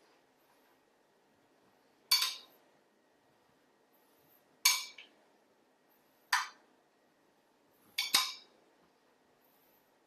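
Metal spoon clinking against a white serving plate as corn kernels are spooned onto a salad: four short clinks about two seconds apart, the last one a quick double tap.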